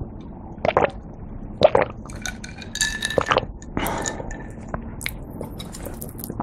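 Close-miked gulps of calamansi and sparkling water swallowed from a glass, twice in the first two seconds. Then the glass clinks and rings as it is set down on the table. Near the end come small clicks of chopsticks against a plate.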